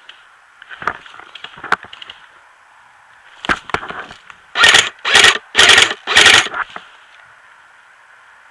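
A few sharp clicks, then four loud scraping rustles about half a second apart, close to the microphone.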